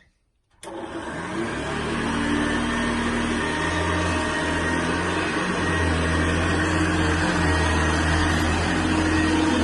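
Hoover Senior 652A upright vacuum cleaner switched on: its motor starts suddenly just after the start, runs up to speed over a second or so, then runs steadily with a hum and whine.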